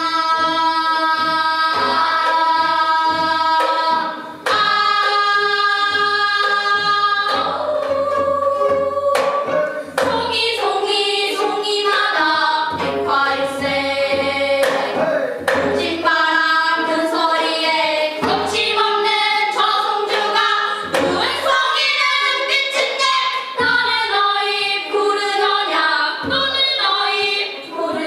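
Gayageum byeongchang: a group of children singing together in the Korean traditional style while accompanying themselves on plucked gayageum zithers. The sung notes are long and held, with plucked notes underneath.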